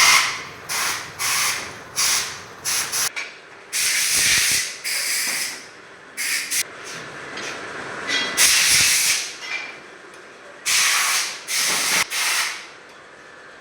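About a dozen short, irregular hissing bursts of pressurised gas, each lasting from a fraction of a second to about a second. A motorcycle engine runs low underneath for the first three seconds, then stops.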